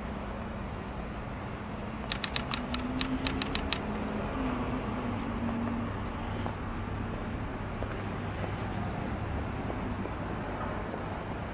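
Typewriter-style typing sound effect: a quick run of about ten sharp key clicks starting about two seconds in, as a caption types itself out. It plays over a steady hum of city street traffic.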